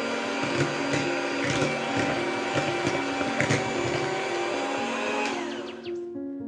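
Electric hand mixer running, its twin wire beaters churning a butter-and-egg mixture in a glass bowl, with a few sharp knocks of the beaters against the glass. About five seconds in the motor is switched off and winds down with a falling whine.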